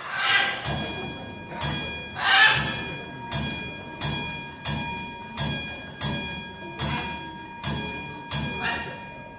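A bell struck about a dozen times at an even pace, roughly three strikes every two seconds, each stroke ringing on. It is a trained parrot counting out the answer to a sum, eight plus five, on a bell.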